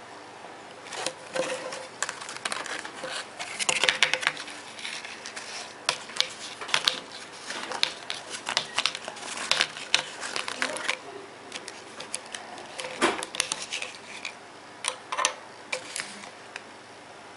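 Small hard plastic objects being handled: irregular clicks and taps mixed with short crinkling rustles, in uneven clusters that stop near the end.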